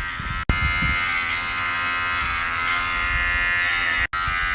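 Electric hair clippers buzzing steadily as they cut hair, with two momentary dropouts, about half a second in and near the end.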